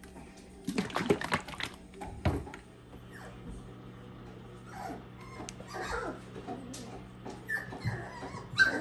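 Mini double doodle puppy whimpering and yipping in short bursts in a plastic tub. About a second in there is a loud clatter of the tub and handling as the puppy is set in, then a knock.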